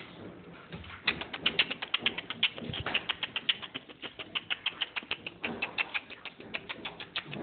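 Airedale terrier puppies scampering on a concrete floor, their claws clicking quickly and irregularly, starting about a second in.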